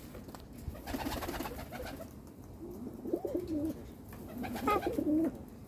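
Baby cockatoo making low, wavering droning calls in three bouts of about a second each.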